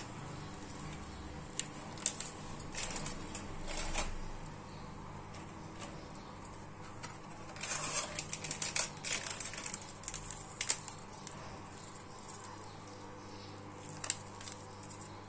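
Plastic spice packet crinkling and tapping as masala powder is shaken out of it: scattered light clicks and rustles, in a cluster about three seconds in and another around eight to nine seconds, over a faint steady hum.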